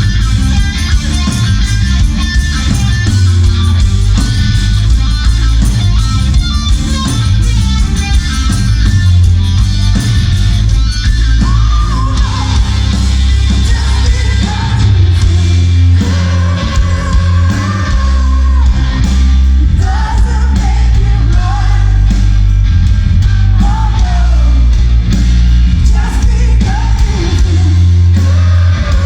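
A live rock band playing loudly through a venue PA: electric guitar, bass and drums. A lead vocal comes in about twelve seconds in and carries a sung melody over the band.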